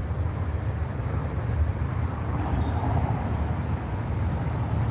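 A steady low rumble of outdoor noise, with no other distinct event.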